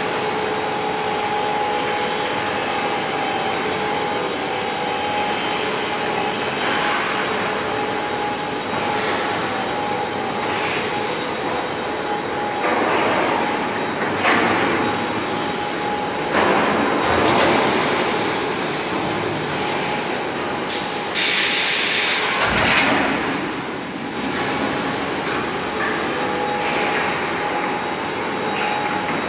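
Slaughter-line machinery running: a steady mechanical drone with two steady hum tones, as the overhead shackle chain conveyor and pumps work. Several louder rushes of noise come through the middle, with a sharp high hiss about two-thirds of the way through.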